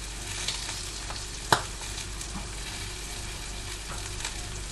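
Bacon and mushrooms sizzling steadily in a covered frying pan on a gas burner, with scattered small pops of spitting fat and one sharper click about one and a half seconds in.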